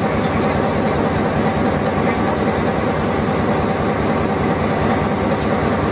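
Diesel locomotive standing with its engine running at idle, a steady drone that holds level throughout.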